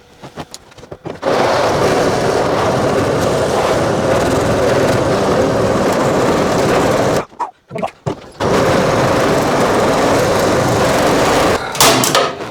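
Drill running a hole saw into the hard steel of a van's bulkhead: a loud steady cutting run of several seconds, a brief stop with a few short spurts, then a second long run that stops near the end.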